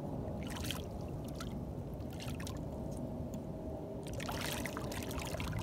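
A small hooked fish splashing in shallow water at the rocky edge as it is reeled in: a few short splashes, the longest about four seconds in, over a steady low background rumble.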